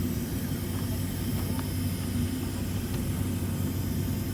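Steady low drone inside a Boeing 767-300ER's passenger cabin on the ground: a constant hum under an even hiss of air.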